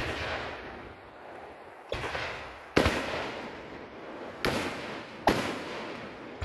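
Fireworks display: aerial shells bursting, four sharp booms in about three and a half seconds, the second one the loudest, each fading away over a second or so.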